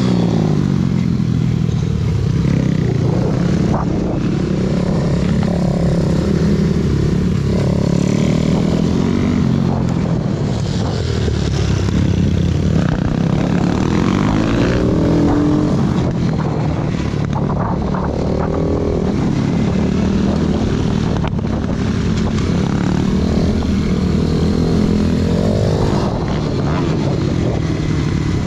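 A 125 cc four-stroke pit bike engine heard from the rider's seat on track. It is running hard throughout, its pitch rising and falling over and over as the throttle opens and closes.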